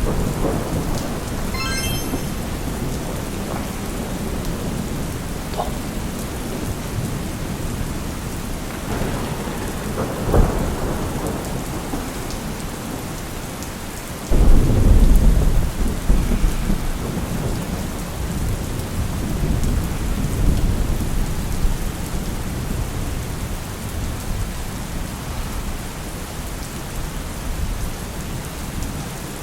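Steady rain falling during a thunderstorm. Thunder cracks briefly about ten seconds in, and a loud, deep thunderclap hits about halfway through and rumbles away over a few seconds.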